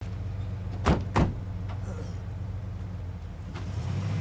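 Van engine idling with a low, steady hum. About a second in, two sharp knocks land about a third of a second apart.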